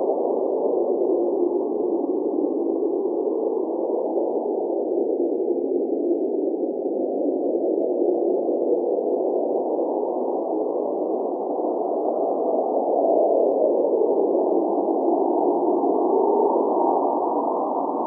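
Cold blizzard wind blowing steadily: a low, even rushing sound with no high hiss, swelling slightly a little past the middle.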